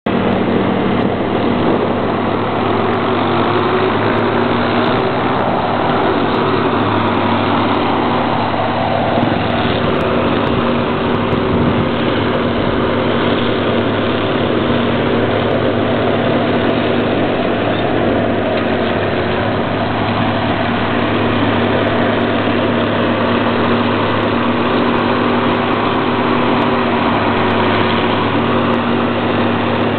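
Diesel engine of heavy road-paving machinery running steadily at a constant speed, an even engine hum with no change in pitch.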